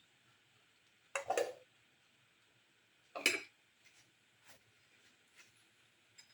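Cookware and kitchen utensils clattering: two sharp knocks against a pan or dish, about a second in and about three seconds in, followed by a few faint ticks.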